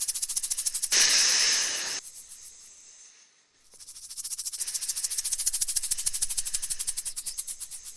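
Rattlesnake rattling its tail in a rapid, even buzz, with a steady hiss for about a second early on. The rattle breaks off briefly near the middle and then starts again.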